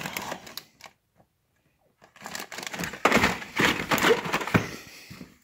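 Carded die-cast toy cars, with cardboard backs and plastic blisters, rustling and clattering as a hand digs through them in a plastic tub. There is a gap of about a second near the start, then the rummaging picks up again.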